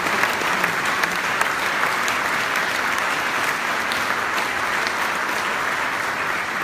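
A large audience applauding steadily, a dense crackle of many hands clapping.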